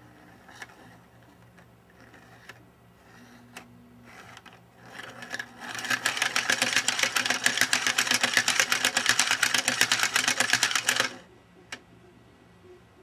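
3D-printed plastic star-wheel and stepped-slider mechanism: a few single clicks as it is turned by hand, then from about five seconds in it is spun fast. The three-pointed star's tips knock the slider back and forth in a loud, rapid plastic clatter that stops abruptly after about five seconds, followed by one last click.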